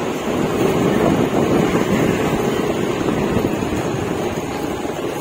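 Wind rushing over the microphone while riding a motorised two-wheeler, a steady noise with the vehicle's engine and road noise underneath.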